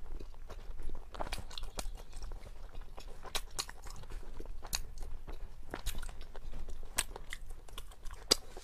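A person chewing a mouthful of food right by a clip-on microphone: a quick, irregular run of wet mouth clicks and crunches.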